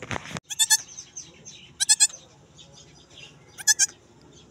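Goat bleating: three short, high-pitched calls about a second and a half apart, each broken into two or three quick pulses. A brief burst of noise comes at the very start.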